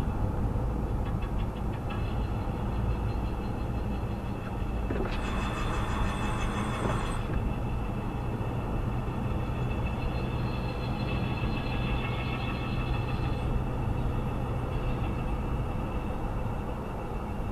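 Car driving with steady road rumble, and a high, rhythmically pulsing squeal from the brakes that turns into a harsher scrape for about two seconds, around five seconds in. This is typical of a small stone trapped between brake pad and disc, which the uploader suspects was picked up from loose chippings.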